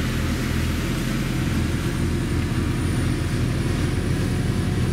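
Scania V8 520 truck's 16-litre V8 diesel engine running steadily while driving, heard from inside the cab.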